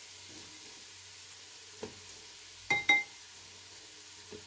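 Chopped garlic frying in hot lard in a pan, with flour just added for a roux: a steady, gentle sizzle. Two sharp ringing clinks come close together a little under three seconds in.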